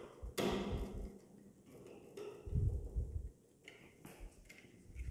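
Screwdriver and wire handling at the screw terminals of a DIN-rail power supply: a sharp scrape about half a second in, then low knocks and rubbing near the middle, and a few small clicks.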